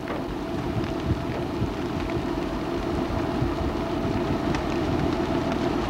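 Strong wind buffeting a camcorder's built-in microphone: a steady rushing with irregular low thumps from the gusts, over a constant low hum.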